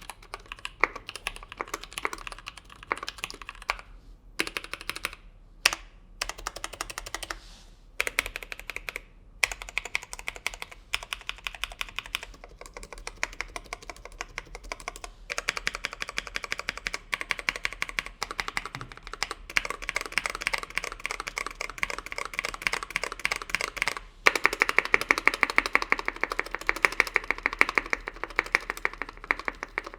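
Fast continuous typing on a 60% aluminium-case mechanical keyboard with lubed NovelKeys Cream linear switches on a brass plate and PBT keycaps. There are a few brief pauses early on. After a short break about three-quarters of the way through, the typing gets denser and louder.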